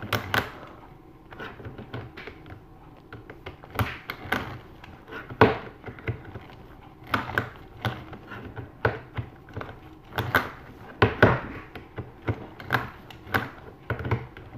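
Irregular plastic clicks and knocks from a YuXin Little Magic 6x6 speedcube as its loose centre screws are tightened with a small screwdriver, with a few louder knocks in the middle and layers turning near the end.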